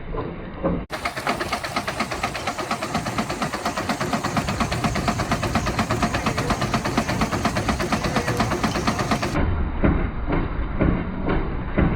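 Steam traction engine running at a steady beat, its exhaust chuffing in an even, repeating rhythm. About a second in the sound abruptly changes to a brighter, faster run of regular beats, then switches back near the end.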